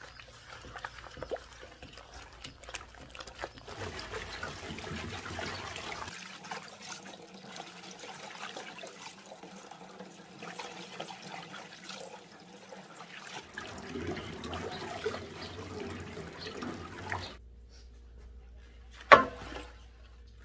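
Tap water running and splashing into a stainless-steel sink as leafy greens are rinsed and handled in a plastic basket, with drips and trickles; earlier, wet squishing of gloved hands mixing chili seasoning in a steel bowl. Near the end a single sharp, ringing knock.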